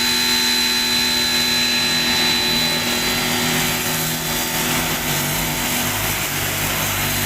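Fujima 1500 W electric pressure washer running under load, its motor and pump humming steadily over a constant spray hiss, with a high whine that fades out about halfway through.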